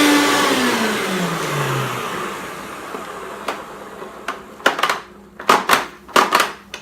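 Hoover Turbopower vacuum cleaner being switched off: its motor whine falls steadily in pitch and fades over a few seconds as it runs down. In the second half come several sharp clicks and knocks.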